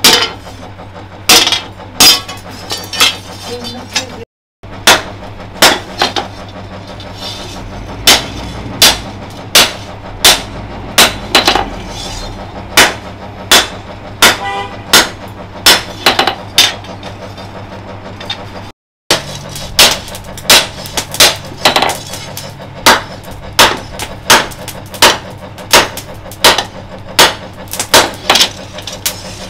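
Blacksmith's hand hammer forging a red-hot steel blade cut from a chainsaw bar on a small anvil: sharp metallic strikes at a steady pace of one to two a second. The sound cuts out briefly twice.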